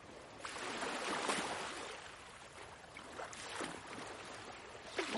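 Recorded ocean waves washing in and out, a soft rush that swells and fades several times.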